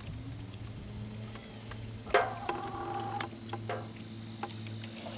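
Baitcasting reel clicking and ticking as a frog lure is cast and worked: one sharp click about two seconds in, then light scattered ticks, over a steady low hum.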